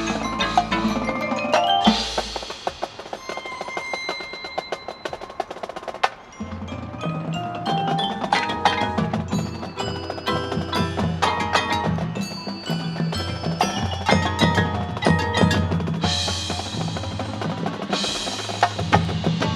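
Marching band playing, with the front ensemble's mallet percussion prominent: quick struck notes on marimba, glockenspiel and chimes. Low held notes join about six seconds in.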